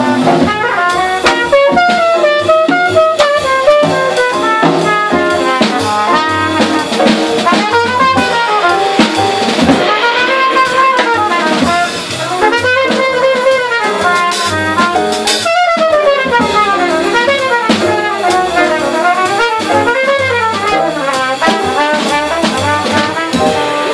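Live small-group jazz: a cornet plays flowing solo phrases that rise and fall, over walking upright bass and a drum kit keeping time on the cymbals. There is a brief breath between phrases about halfway through.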